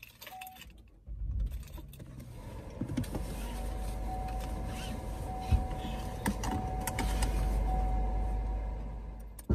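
Sounds inside a car: a seatbelt is drawn across and buckled, with a click about halfway through. Under it runs the car's steady low rumble, which comes in about a second in, with a faint steady whine over it.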